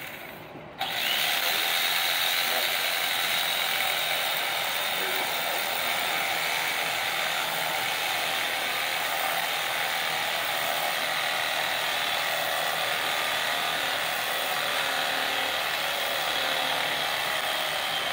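Electric carving knife running as its reciprocating blades saw through thick mattress foam. It starts up abruptly about a second in and then runs as a steady buzz.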